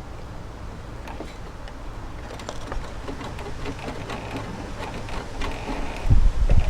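Small clicks, taps and scraping of hand tools and parts while a lawnmower's fuel line and fittings are being worked loose, over a steady low rumble. Two loud low thumps come near the end.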